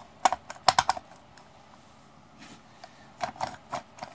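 Metal parts of a starter motor clicking and clinking as its housing is worked back onto the drive-end housing by hand. There is a quick cluster of sharp clicks in the first second, a pause, then a few more near the end.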